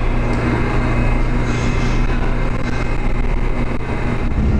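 Seoul Line 2 subway train standing at an underground platform just after pulling in. Its equipment gives a steady low hum with a faint high whine.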